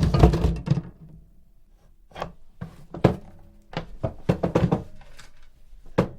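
Wooden coffin being handled: a dense clatter of wooden knocks in the first second, then separate thunks and knocks on the wood, with a quick run of them about four to five seconds in and a last knock near the end.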